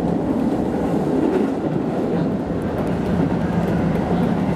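Japanese train running along the track, heard from inside the driver's cab: a steady running noise of wheels on the rails and the moving car.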